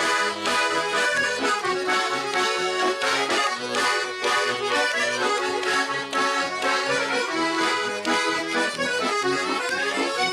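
Russian garmon playing a lively folk dance tune with no singing, its melody over a steady alternating bass-and-chord rhythm. The playing stops abruptly at the very end.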